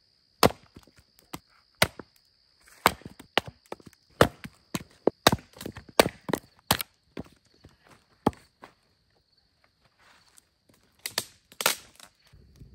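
Hatchet splitting firewood on a log chopping block: an irregular run of sharp chops and cracks of splitting wood, with a lull in the middle and a last quick cluster near the end.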